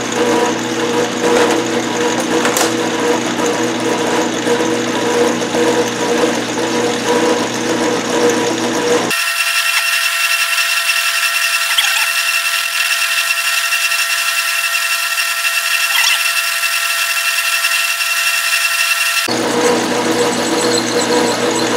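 Craftsman Atlas metal lathe running, its motor and drive humming steadily as a parting tool is fed into the spinning workpiece. About nine seconds in, the low hum abruptly drops away, leaving a thin, steady high whine for about ten seconds, before the full hum returns.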